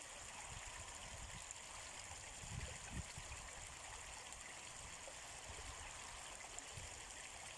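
River water running over stones: a steady, faint rushing, with a few brief low thumps about two and a half to three seconds in.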